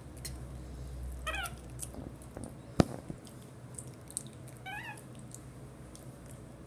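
Pet capuchin monkey giving two short high calls, about a second in and again near five seconds. A single sharp knock, the loudest sound, comes a little before three seconds.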